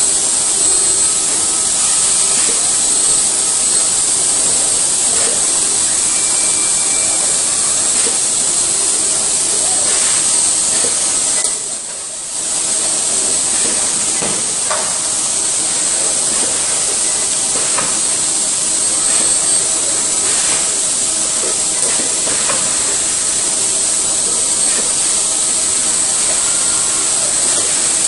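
Steady, loud hissing machine noise of a car-body assembly line, with faint clicks and tones mixed in; it dips briefly about twelve seconds in.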